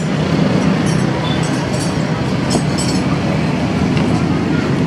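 Steady low rumble of road traffic, with a few light scrapes and clicks as flour is scooped from a plastic tub.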